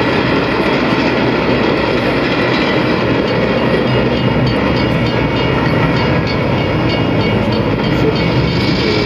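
Recorded train sound played loud over an arena's PA: a train running steadily, a dense rumble with a faint clickety-clack of wheels.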